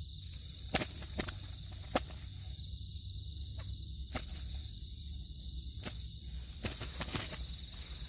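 A nylon cast net being handled in dry grass as quail are pulled from it: rustling, with scattered sharp clicks and snaps.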